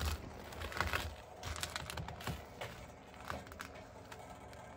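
Rustling and a few light clicks and knocks of hands turning an electric heater in a cramped space, thinning out after the first couple of seconds.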